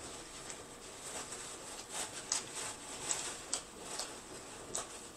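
A person chewing fried food close to the microphone: irregular wet mouth clicks and smacks, a few louder ones past the middle.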